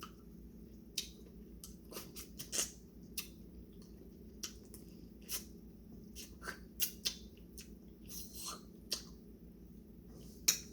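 Lobster shell being picked and pried apart by hand in butter sauce: irregular small clicks and cracks with a few wet squishes.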